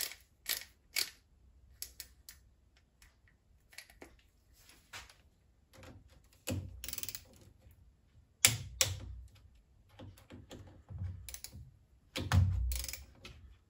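Click-type torque wrench tightening the tool post mount's hold-down bolts to 10 newton metres: scattered sharp metallic clicks and knocks, the loudest about eight and a half seconds in, with two short rasping stretches.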